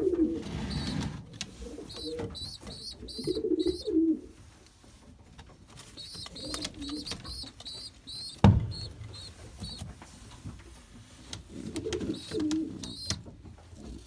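Domestic pigeons cooing in a nest box, with repeated little groups of short, high-pitched peeps from the squabs. A single sharp knock comes a little past halfway.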